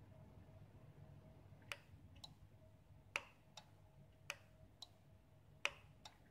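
Four presses of a replacement gate-remote key fob's push buttons, each a sharp click followed about half a second later by a lighter one. They test the newly programmed remote. A faint steady tone runs underneath.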